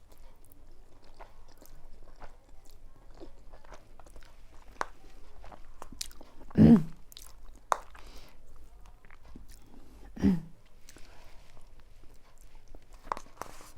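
A person eating spicy noodles: chewing with many small wet clicks and crunches, broken twice by a short, louder sound from the voice, about halfway through and again some three seconds later.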